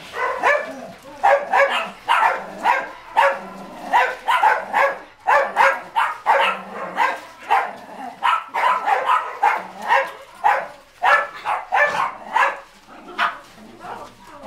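Shelter dogs barking over and over, short sharp barks about two a second with brief pauses.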